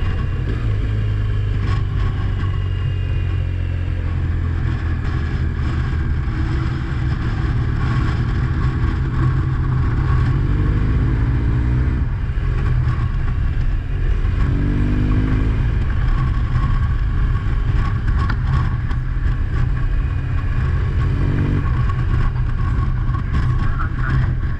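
Motor vehicle being driven: a steady low engine and road rumble, with the engine note rising three times as it accelerates.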